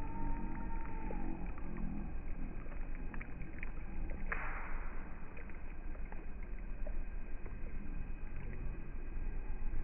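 Lakeshore ambience on a windy day: a steady low wind rumble on the microphone, with a few faint clicks and a short burst of hiss about four seconds in.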